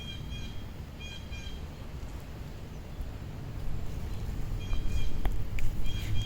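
Wind rumbling on the microphone, getting stronger in the last couple of seconds, with short bird chirps coming in small groups a few times.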